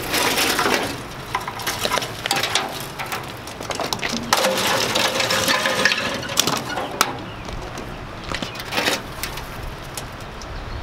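Rusted seat-spring wire and scrap sheet metal rattling, scraping and clanking as they are pulled from a junked truck cab by hand. The clatter comes in irregular bursts, densest about halfway through.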